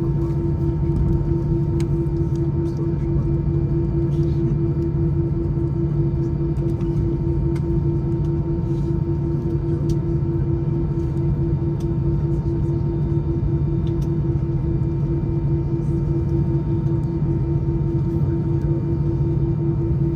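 Steady drone of an Airbus A319-111's CFM56 engines heard inside the passenger cabin: a low rumble with a pulsing mid hum and several steady tones that hold unchanged throughout.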